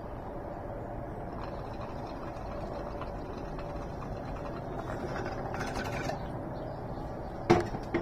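Steady low outdoor background noise with faint tonal traces above it, and a sharp click near the end.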